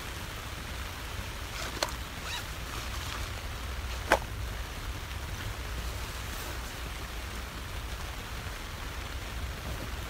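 Steady rain falling on a tent, heard from inside as an even hiss. Two sharp clicks cut through it, about two seconds and four seconds in, the second one louder.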